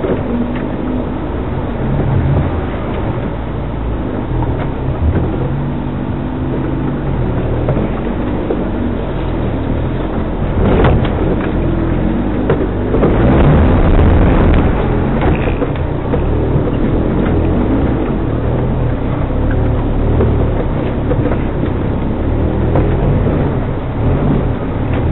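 Off-road 4x4's engine running at low, changing revs as it crawls over rough trail. There is a sharp knock about eleven seconds in, and the sound grows louder and rougher for a couple of seconds shortly after.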